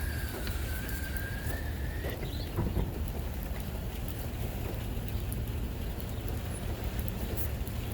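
A steady low rumble, with a thin whistling tone that dips and then rises over the first two seconds, and a short upward squeak a moment later.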